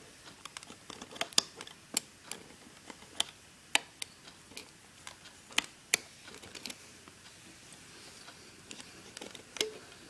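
Irregular sharp clicks and snaps, about one a second, as rubber loom bands are hooked and capped off the clear plastic pegs of a band loom.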